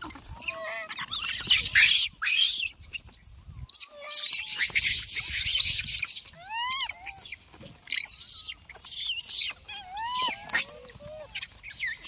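Monkeys giving short high calls that rise and fall in pitch, repeated many times, with bursts of noise in between.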